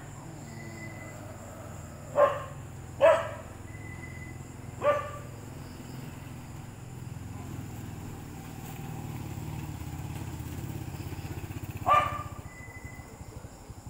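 A dog barking: three single barks a second or two apart, then one more about seven seconds later.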